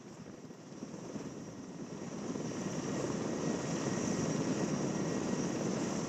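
Erickson S-64 Aircrane heavy-lift helicopter running. It grows louder over the first three seconds and then holds steady.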